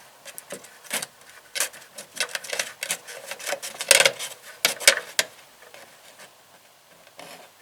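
Irregular metallic clicks and clanks of hand tools working under a car to drain the engine oil, with two sharper knocks about four and five seconds in; the sounds thin out near the end.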